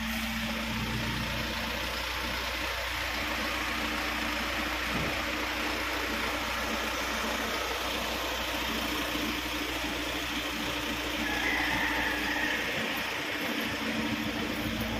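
A heavy truck's diesel engine idling steadily, with a brief higher-pitched hiss about eleven seconds in.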